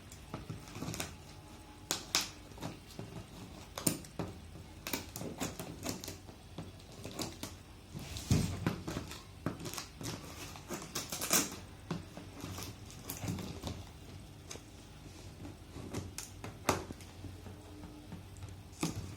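Speaker box being opened and its packaging handled: irregular clicks, taps and knocks with some rustling, a few sharper knocks standing out.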